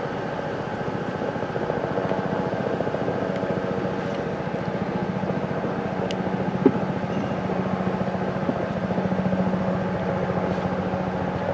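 Helicopter flying overhead, its rotor beating in a rapid, steady pulse over a constant engine hum. A single sharp click about two-thirds of the way in.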